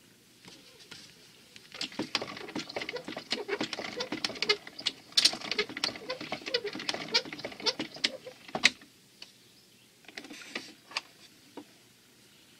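Irregular clicks, taps and small rattles from a wind-up acoustic gramophone being handled between 78 rpm records, with the reproducer lifted off the spinning disc. The handling is busiest in the middle and thins to a few clicks near the end.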